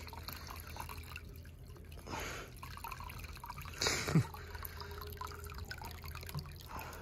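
A thin stream of water trickling and dripping from a small plastic hose into a miniature water tank. A brief louder noise comes about four seconds in.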